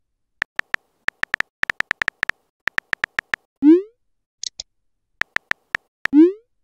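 Text-messaging sound effects: quick runs of keyboard tap clicks as a message is typed, with a short rising bloop a little past the middle and again near the end as messages are sent.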